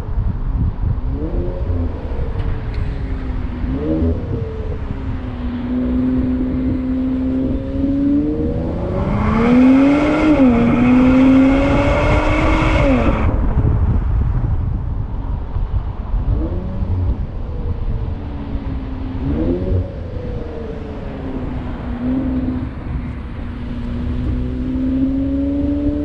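Car engine climbing mountain hairpins, its revs rising and falling through gear changes and throttle lifts. About nine seconds in it pulls hard and gets loud and bright, changes up once, and drops off the throttle around thirteen seconds, all over a steady low rumble.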